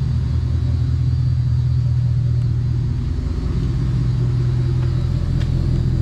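2008 Chevrolet Silverado's LS V8 idling with a steady, even exhaust rumble: running smoothly now that a bad ignition coil has been replaced and the misfire is cured.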